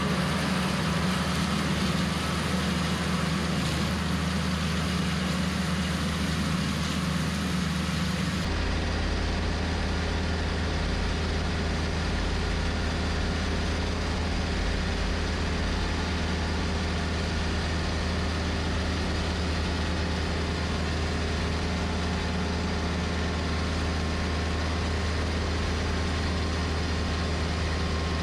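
John Deere 110 tractor's diesel engine running steadily, driving a PTO-powered three-blade finish mower while mowing grass. About eight seconds in, the sound changes abruptly to a deeper, steadier hum.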